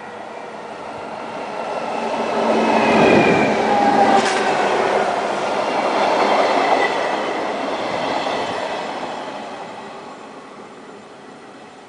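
Red-and-white electric passenger train running past along the platform. Its rumble and motor whine build over the first few seconds and peak as it goes by, with the whine sliding down in pitch. It then fades steadily as the train pulls away.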